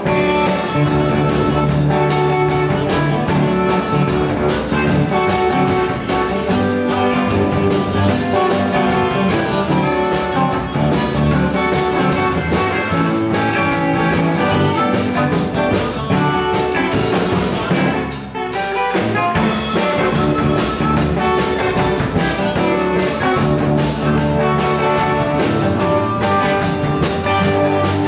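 Live electric blues band playing an instrumental: two electric guitars, a drum kit keeping a steady beat, and harmonica played into a microphone. The band drops out briefly about two-thirds of the way through, then comes back in.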